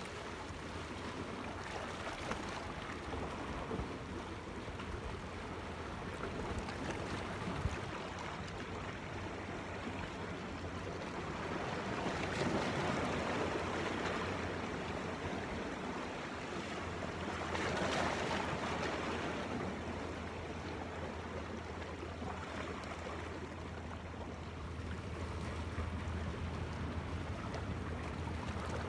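Small sea waves washing against rocks, swelling louder a couple of times around the middle, with wind rumbling on the microphone.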